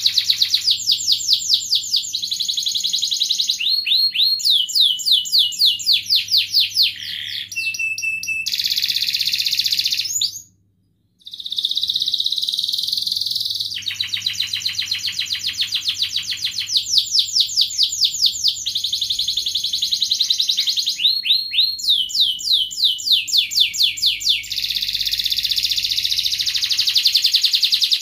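Domestic canary singing a long song of fast rolling trills and quick repeated chirping phrases, with a brief break about ten seconds in.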